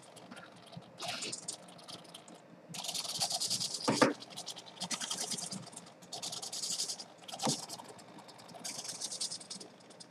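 Small hobby servos whirring in short bursts of about a second, several times over, as they drive a model flying wing's elevons to counter the wing being tilted by hand: an accelerometer-based auto-levelling system at work. Two knocks from the wing being handled, a little before the middle and past the middle.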